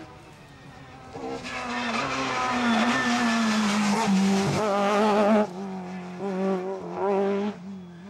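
Rally car engine coming up hard through a bend, its note rising and getting louder as it approaches and passes close by. A little past halfway the sound drops suddenly, and the engine carries on more quietly with a wavering note.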